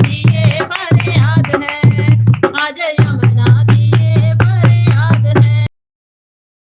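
Hindi devotional bhajan song: a singing voice over a steady bass and regular drum strokes. It cuts off abruptly near the end, leaving silence.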